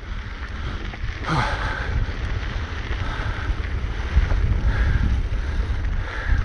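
Wind rumbling over the microphone of a mountain bike's action camera as the bike rolls down a dirt trail, with tyre noise mixed in.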